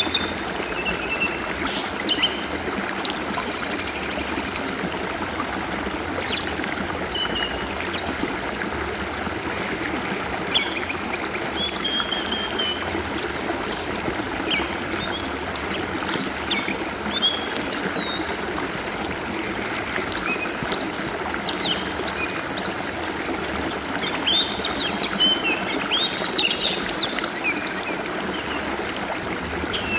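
Steady flowing, trickling stream water with an oriental magpie-robin singing over it in short whistles, chirps and quick falling notes, the song busiest near the end.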